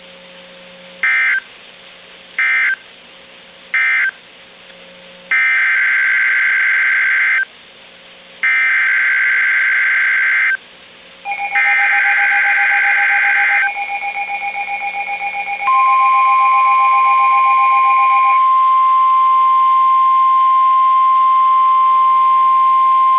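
Emergency Alert System data bursts and alarm tone. First come three short screeching end-of-message bursts, then three longer screeching SAME header bursts of about two seconds each. A lower alert tone enters under the third burst, and about sixteen seconds in the steady, single-pitch NOAA Weather Radio warning alarm tone takes over and holds.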